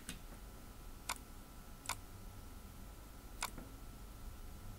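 Computer mouse clicking: a few sharp single clicks about a second apart, over a faint steady hum.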